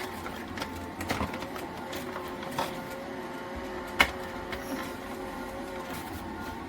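Roborock F25 wet-dry vacuum in its base station with the hot-air drying cycle running: a steady motor-and-fan hum, with a few sharp clicks about one, two and a half, and four seconds in.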